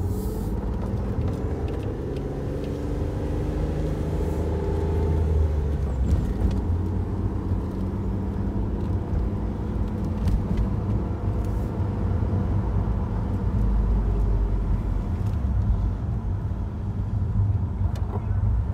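A car driving: its engine note rises slowly over the first five seconds or so as it accelerates, then it runs steadily at a low pitch.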